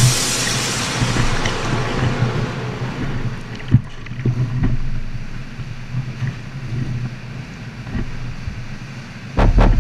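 Ocean swell surging and washing through a sea cave around a kayak, a loud rush at first that fades gradually, with one sharp knock about four seconds in. Music cuts back in near the end.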